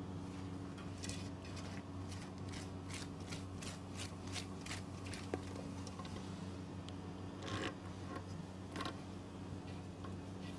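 Stainless steel kitchenware being handled over a steady electrical hum: a run of light quick clicks, about three a second, for a few seconds, then a couple of louder metal clatters near the end as a steel pot is picked up.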